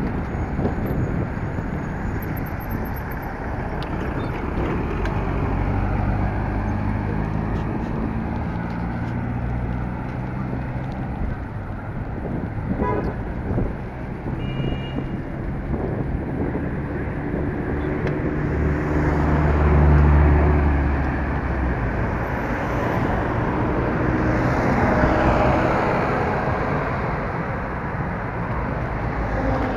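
City street traffic heard from a moving bike: car and pickup engines running and passing close, with a steady low rumble from wind on the microphone. A vehicle passes closest and loudest about two-thirds of the way in, and car horns toot briefly.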